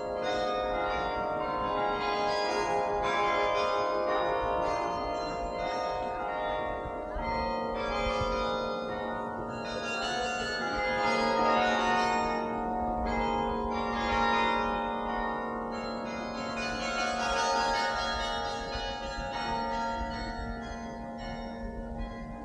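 The Singing Tower's carillon playing a tune: many tuned bronze bells struck in turn, their notes ringing on and overlapping.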